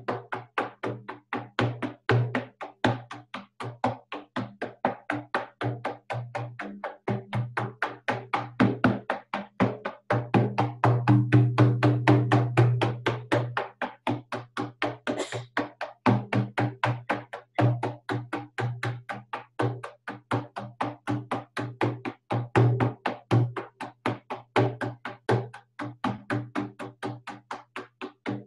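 Large hand-held rawhide frame drum beaten in a fast, steady, even rhythm, the low boom of the head ringing under each stroke: a shamanic journey beat. The beats swell louder for a few seconds about a third of the way in.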